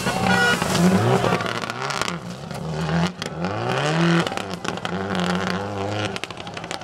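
Subaru Impreza WRX STI rally car's turbocharged flat-four boxer engine revving hard, its pitch rising and falling with throttle and gear changes. The note drops briefly about three seconds in, then climbs again.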